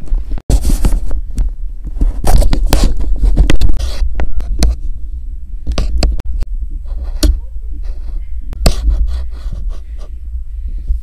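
Handling noise on the handheld camera's microphone: a constant low rumble with irregular scrapes and knocks as the device is gripped and moved about.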